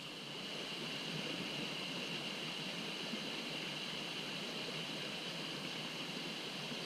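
A mountain stream rushing steadily, an unbroken hiss of flowing water.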